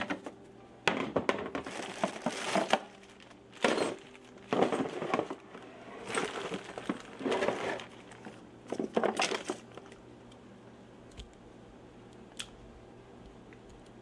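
Clear zip-top plastic bag crinkling in repeated bursts as it is handled, quieting after about nine seconds, with a couple of sharp clicks near the end.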